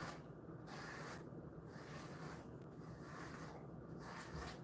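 A pet grooming brush drawn through a dog's thick double coat in repeated strokes, each a short soft scratchy swish, coming about every half second.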